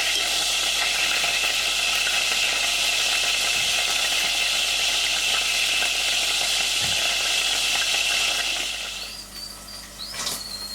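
Wood pigeon breasts frying in a hot pan of olive oil and butter: a steady sizzle that drops away sharply near the end.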